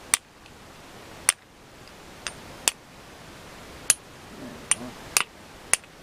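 Sharp metallic clicks, about eight in six seconds at an irregular pace, as a brake piston is worked into the bore of a Yamaha V-Max rear brake caliper by hand. The piston is clicking against the caliper while it is being pushed in straight.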